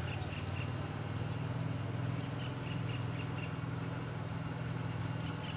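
Golf buggy motor running with a steady low hum, with faint short bird chirps over it.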